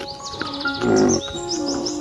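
Background music, with a bird chirping in fast high trills over it.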